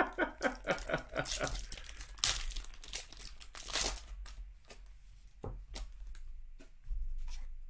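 Silver foil wrapper of a trading-card pack being torn open and crinkled: a dense run of crackling for about four seconds, then a few scattered clicks and rustles as the cards come out.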